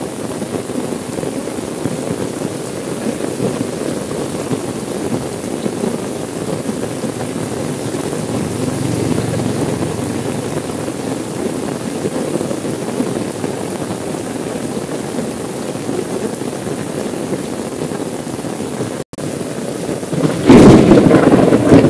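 Steady heavy rain drumming on a car's roof and windows, heard from inside the car. Near the end, a loud clap of thunder breaks in and rumbles on. The sound cuts out for an instant shortly before it.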